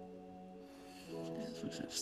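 Soft background music of sustained chords that change about a second in, with a few faint clicks near the end.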